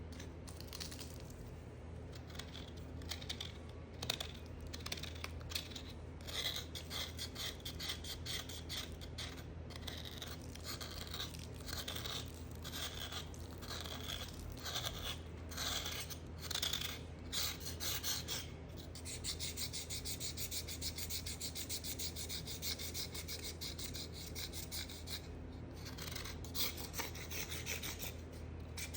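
Soap being scraped and cut with a blade: irregular scratchy strokes, then, about two-thirds in, a quicker run of fine rasping scrapes.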